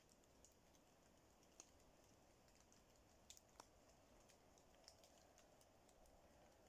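Raindrops falling on oak leaves: faint, scattered irregular ticks, a few sharper ones near the middle, over a low steady hiss.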